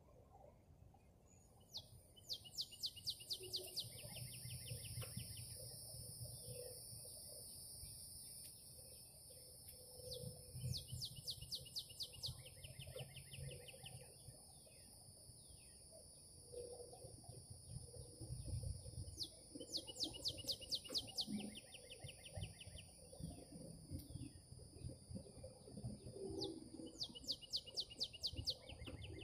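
A bird singing a fast trill of short repeated notes in bouts of about two seconds, about every eight or nine seconds, four times. A steady high insect drone runs underneath.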